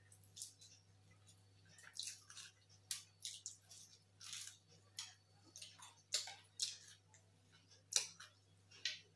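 Faint wet eating sounds of people eating rice and dal by hand: irregular soft smacks and squelches, one or two a second, over a low steady hum.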